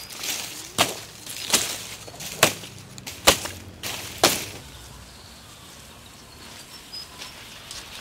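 Cut sugarcane stalks dropped onto a pile of stalks on dry soil, clacking against each other: five sharp knocks about a second apart, then quieter for the rest.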